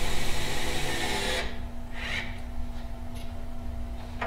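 Cordless drill-driver running a screw through a solid-wood hold-down into the MDF spoil board, its motor whirring and stopping about a second and a half in, followed by a few light clicks, over a steady low hum.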